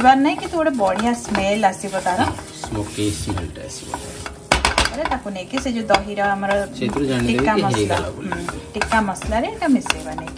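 Besan (gram flour) being stirred in hot mustard oil in a pan, sizzling, with the spoon scraping and clicking against the pan.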